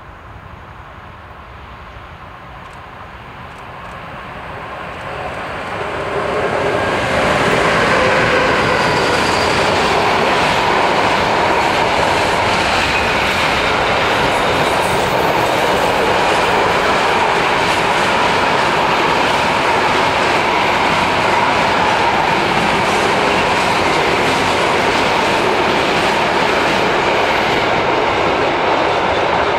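Container freight train approaching and passing close by. It grows louder over the first several seconds, then holds at a steady rumble of wagon wheels rolling on the rails.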